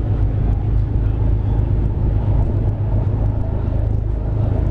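Car ferry under way: its engines make a steady low drone, with water rushing along the hull.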